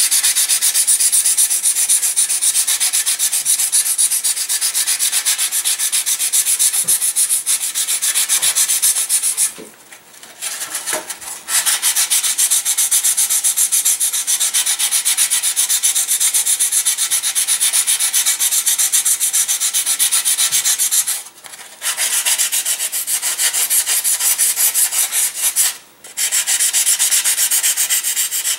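Hand sanding block rubbed in fast back-and-forth strokes on the wooden nose of a discus-launch glider fuselage, a steady scratchy hiss. It stops briefly three times: about a third of the way in, and twice in the later part.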